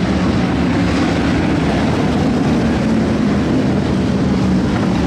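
Stock V8 dirt-track race cars' engines running together at a slowed caution pace as the field passes, a steady dense drone with no hard revving.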